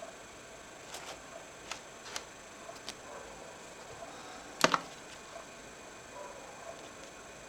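Light clicks of small laptop parts being handled, then one sharper, louder clack about four and a half seconds in.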